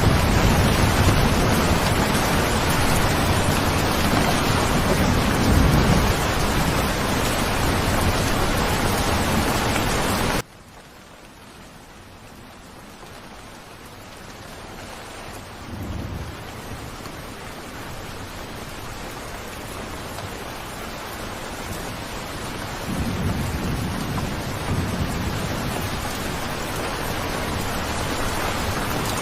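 Steady heavy rain with low rolls of thunder. About a third of the way in the rain cuts off abruptly to a much quieter rain, which slowly grows louder again with further thunder rumbles.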